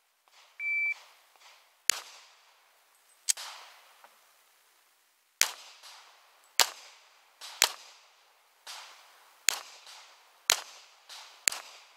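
A shot timer's start beep, one short steady tone, then a semi-automatic pistol fired about ten times at an uneven pace, in pairs and singles, as the shooter moves between targets.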